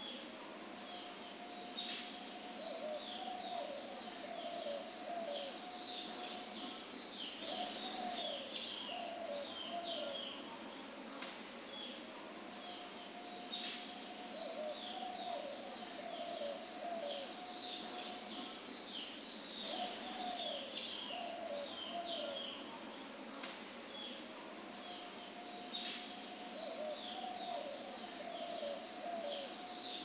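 Birdsong ambience: quick high chirps and a lower call, the same pattern coming back about every six seconds over a steady high hiss.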